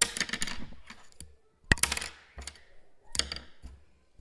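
Pens dropped onto a hard surface, clattering in three rattling bursts: one at the start, the sharpest about a second and a half in, and another about three seconds in.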